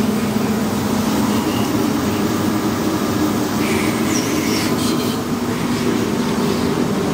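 Steady mechanical hum with an even drone, and a faint brief squeak about four seconds in.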